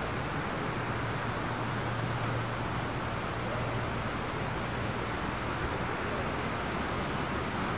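Steady rushing outdoor noise with a low hum underneath, heard while riding a bicycle along a beachfront path: a mix of wind on the microphones, surf and distant traffic. A faint high hiss comes in briefly about five seconds in.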